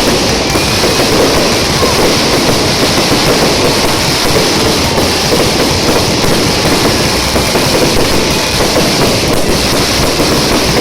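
Fireworks barrage: a dense, continuous crackling of many bursts at once, loud and unbroken, with a faint whistle now and then.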